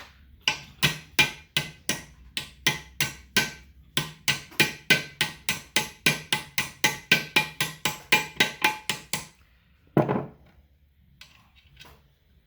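Hammer tapping steadily on metal, about three blows a second with a brief pause near the middle, each blow ringing. The blows are working a crooked part of a Cub Cadet 70 rear end down into place.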